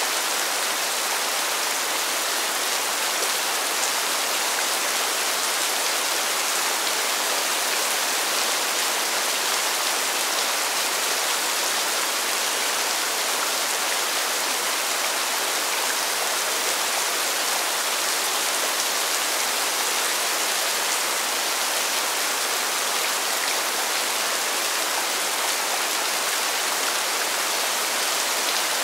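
Steady rain falling on pavement: an even, unbroken hiss of dense drops, mostly high-pitched with little low rumble.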